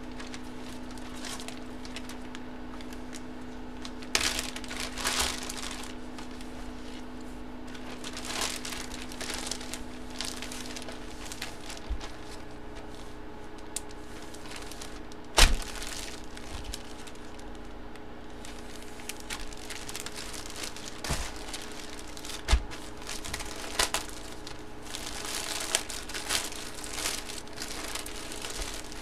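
Clear plastic packaging crinkling and rustling in the hands as a card-break item is unwrapped. There are scattered handling noises, one sharp click about halfway through, and a steady low hum behind it all.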